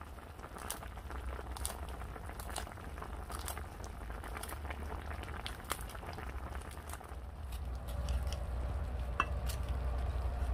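A meat-and-vegetable stew simmering and bubbling in a pan, with scattered small pops and clicks over a steady low rumble.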